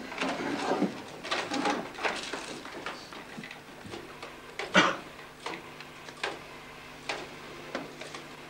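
Paper rustling and crackling as a newspaper is handled, dense at first and then in scattered small rustles, with one sharper click just under five seconds in.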